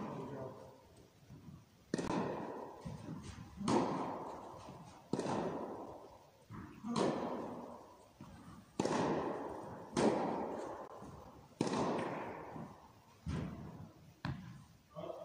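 Tennis balls being struck and bouncing in an indoor tennis hall: about ten sharp knocks, one every second or two, each ringing out in the hall's long echo.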